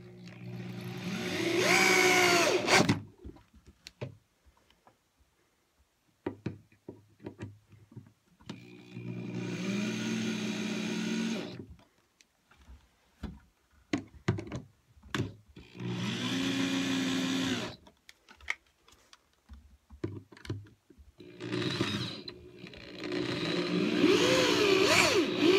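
Corded DeWalt drill driving screws through a metal wall-mount bracket into drywall anchors. It runs in four bursts of a few seconds each, and the motor's pitch bends as the screws draw tight. Short clicks and handling knocks come between the bursts.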